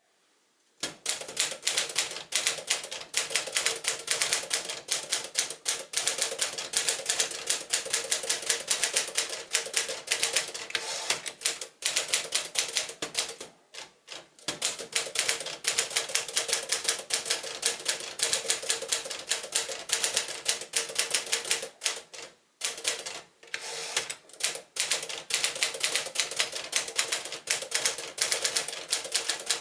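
1957 Smith-Corona Clipper manual portable typewriter being typed on fast, a rapid run of key strikes clacking against the platen, broken by a few short pauses.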